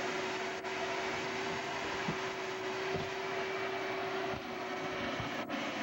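Vacuum running steadily with a constant hum, sucking through a long hose pushed up into a door overhang to pull out a hornet nest.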